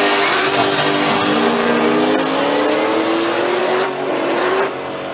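Drag-racing cars at full throttle down the strip, the engine note climbing steadily in pitch as they accelerate, with a brief drop about a second in like a gear change. The engine sound falls away sharply near the end.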